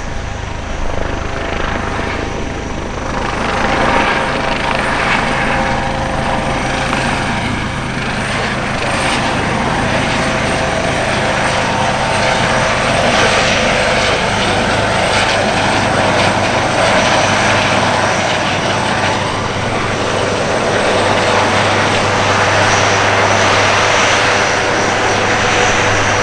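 US Coast Guard MH-65 Dolphin helicopter passing close by: its twin turbine engines and rotors make a loud, continuous whine with steady tones. The sound swells a little about four seconds in and stays up as it goes by.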